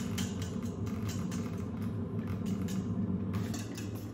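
Wire balloon whisk beating eggs in a stainless steel bowl, its wires scraping and clicking against the metal at about four strokes a second, over a steady low hum.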